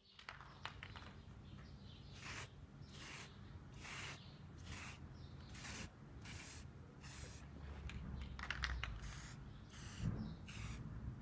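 Aerosol spray-paint can hissing in short, repeated bursts, a little faster than one a second, with a few light clicks near the start.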